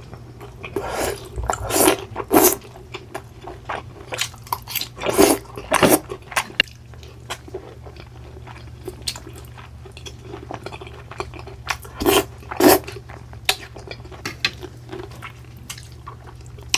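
Close-up eating sounds from a person eating steak: chewing with wet mouth clicks, and a few sharper clicks and knocks in clusters, over a low steady hum.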